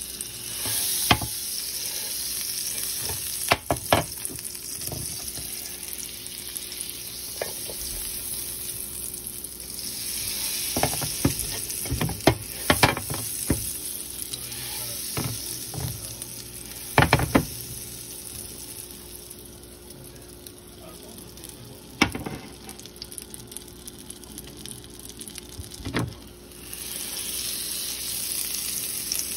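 Butter melting and sizzling in a hot ridged grill pan, a steady frying hiss, with occasional sharp knocks as the block of butter is moved about the pan.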